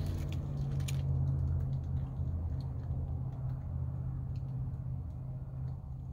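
Steady low rumble of road noise heard inside a truck cab, a droning hum that eases slightly toward the end, with a few faint clicks.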